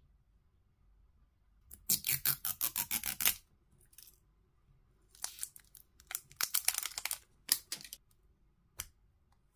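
Clear plastic shrink-wrap being torn and peeled off a lipstick tube: two bouts of quick, crackly tearing and crinkling, then a single click near the end.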